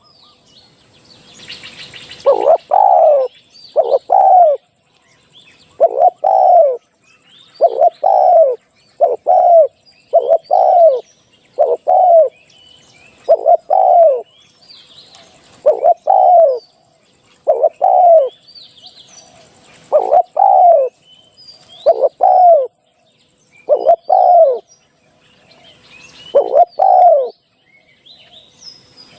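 Spotted dove cooing, loud short coo notes repeated every second or two and often in pairs: a live decoy call used to lure wild spotted doves. Faint chirps of small birds come in above it.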